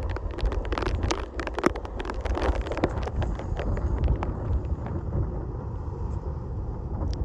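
Wind buffeting the microphone in a steady low rumble, with many scattered crackles and rustles.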